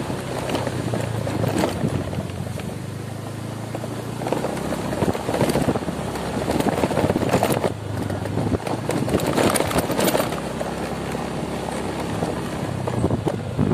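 Motorcycle engine running steadily while riding over a rough, potholed lane, with wind on the microphone and scattered knocks from the bumpy surface.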